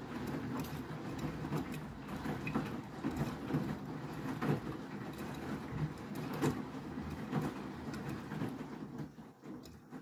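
Beko WTK104121W front-loading washing machine mid-wash: the drum turning and wet laundry tumbling and sloshing in the water, with scattered soft thuds. The sound fades away about a second before the end.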